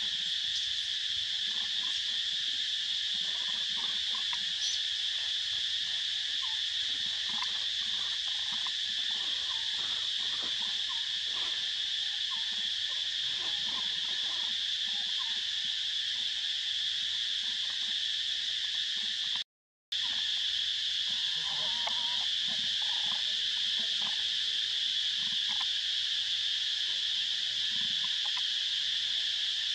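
Steady high-pitched drone of an insect chorus, unbroken except for a split-second drop to silence about two-thirds of the way through.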